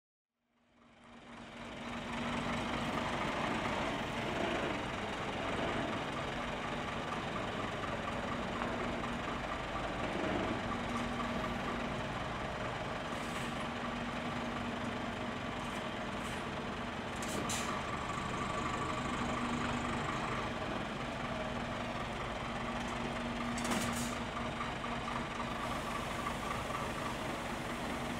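Scania R500 hook-lift truck's V8 diesel engine running steadily as the truck moves slowly, fading in over the first two seconds. Two short hisses of air come about two-thirds of the way through and again near the end.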